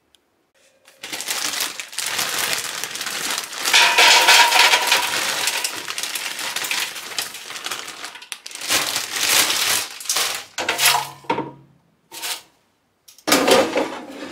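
Frozen fries poured from a plastic bag into a Proscenic T21 air fryer's metal basket: a long run of hard frozen sticks clattering in, with the bag crinkling. This is followed by several shorter bursts of shaking and clatter.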